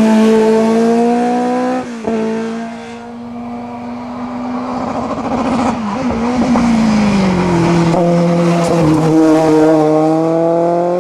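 Open-wheel single-seater race car engine running hard at high revs. The pitch breaks sharply about two seconds in, falls away from about six to eight seconds in, and climbs again near the end.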